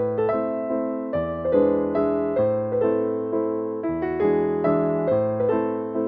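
Slow, gentle background music on a keyboard: single struck notes a few per second over a low bass note that changes every two to three seconds.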